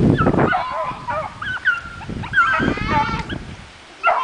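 A pack of beagles baying and yelping as they run, several short cries rising and falling and overlapping one another, quieter for a moment near the end.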